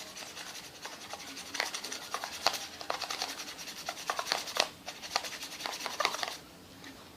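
Homemade dish-soap-and-shampoo slime being handled and squeezed: a dense run of small sticky clicks and rubbing, which stops about six seconds in.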